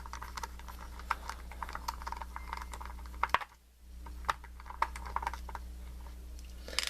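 Small screwdriver working the two little screws out of the back of a padlock core: rapid light clicks and scrapes of metal on metal, over a steady low hum, with a brief pause about halfway through.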